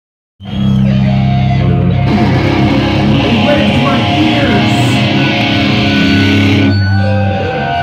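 Live rock band playing loudly: electric guitar chords over drums. About seven seconds in the full band drops away, leaving a few held notes ringing.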